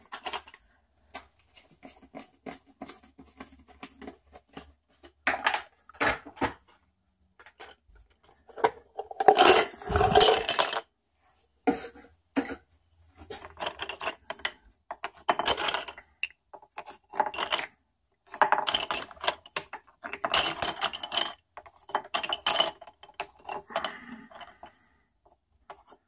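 Wooden dowel sticks clattering and knocking against one another and the wooden box as they are pulled from their holes and dropped into a pile, in irregular bursts of clicks.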